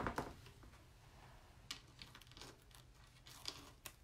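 A sharp knock at the start, then faint, scattered clicks and rustles of hands handling an adhesive stencil transfer and craft tools on the board, over a low steady hum.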